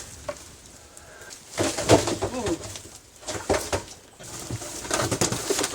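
Low cooing bird calls, a few short calls in the middle and more near the end.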